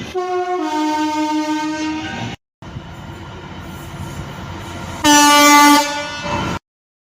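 Train horns, in two short cut-together clips. In the first, a horn sounds a high note and then drops to a lower one. In the second, a passing train's noise is topped by one short, loud horn blast near the end.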